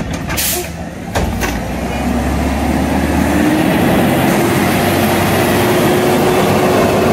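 Natural-gas Mack LR garbage truck pulling away: a few knocks of the cart and Curotto Can arm in the first second and a half, then the engine runs loud and low as the truck accelerates past, with a whine that rises and then holds steady.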